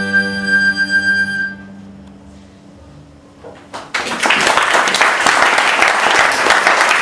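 Final held chord of flute and strings, the flute's high note on top, stopping about a second and a half in. After a brief lull, audience applause breaks out about four seconds in and carries on.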